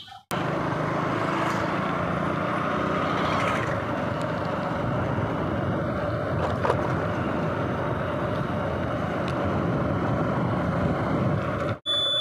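Steady engine and wind noise from a vehicle moving along a street. It starts abruptly and cuts off shortly before the end.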